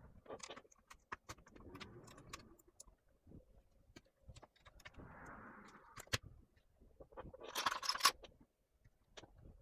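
Scattered small clicks, taps and clinks of hands handling laptop parts while the mainboard is being taken out, with a brief louder scraping rustle about three-quarters of the way through.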